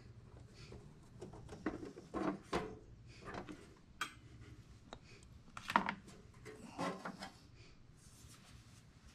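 Faint handling noise: scattered light knocks, rubs and clatter of hands moving hard objects on a workbench, the sharpest knock a little before the six-second mark.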